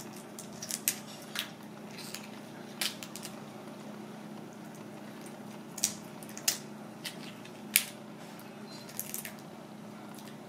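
Raw tiger prawn shell crackling and snapping in short, sharp clicks as it is peeled off by hand, with faint wet squishing, over a steady low hum.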